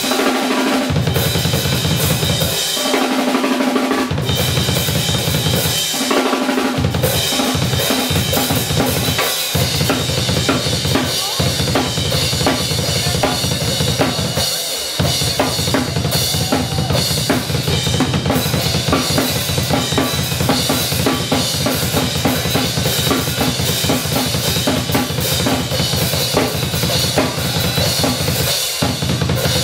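Live drum solo on a Yamaha drum kit: fast, dense bass drum and snare strokes with cymbals over them, broken by a few short stops in the bass drum, the longest near the start.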